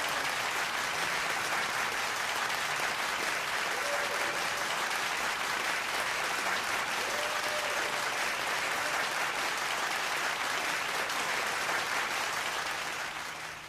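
Concert audience applauding steadily, the clapping fading out near the end.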